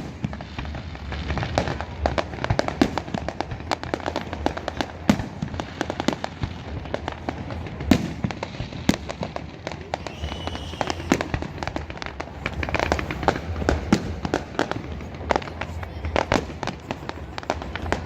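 Fireworks display: a continuous run of sharp bangs and crackling reports, with a brief high whistle a little past halfway.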